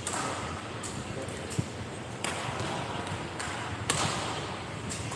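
Badminton rackets striking a shuttlecock in a large sports hall: several sharp, irregularly spaced clicks, the loudest about four seconds in, over the hall's background murmur.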